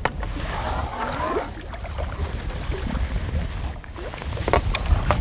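Water splashing as a hooked bream is drawn into a landing net at the bank, with a louder splash about four and a half seconds in, over a steady low rumble.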